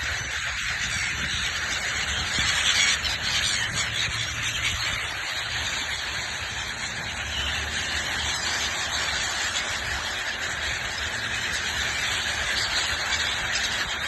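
Many small birds chirping and chattering at once in a continuous dense chorus, over a low rumble.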